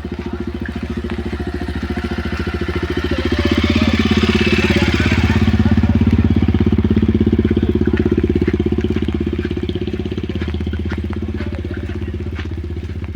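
Vehicle engine running close by, a steady low throb that grows louder about three seconds in, peaks in the middle and eases off toward the end.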